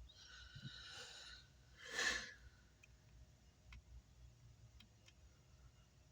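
A person's breath: a long hissy exhale, then a shorter, louder puff about two seconds in, followed by a few faint clicks.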